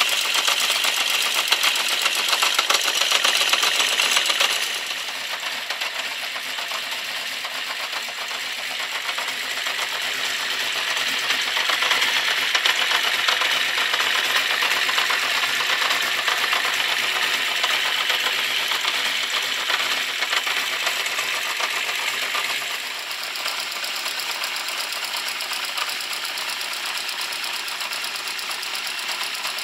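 Honda CB650 Custom's inline-four engine idling with a fast, steady mechanical ticking. The owner thinks the ticking comes from the clutch or cam chain area and from the valves on cylinder 4. The level drops about four seconds in, rises again, and drops again past twenty seconds.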